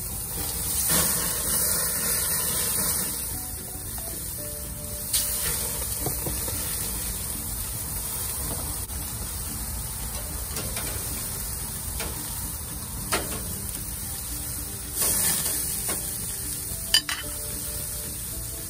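Flank steak and squid sizzling on hot grill grates. The sizzle swells about a second in and again around fifteen seconds as food is laid down or moved, with a few sharp clicks of metal tongs.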